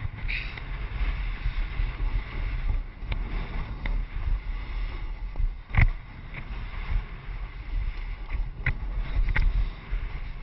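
Wind rumbling on an action camera's microphone during a fast ski descent, over the hiss and scrape of skis on hard, wind-packed snow. A few sharp clicks and knocks come through, the loudest about six seconds in.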